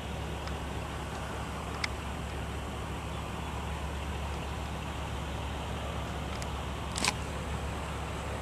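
Steady low rumble of a car, heard from inside the cabin, with two short clicks about two seconds in and near the end.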